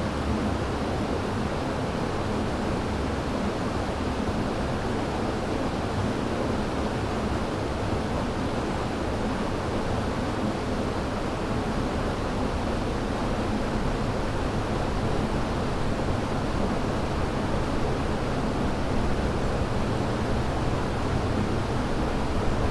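A river rushing steadily, an even, unbroken wash of water sound weighted toward the low and middle range.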